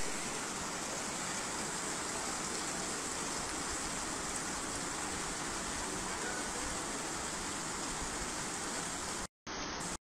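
Steady, even hiss of rain falling on a hail-covered street, cutting out briefly near the end.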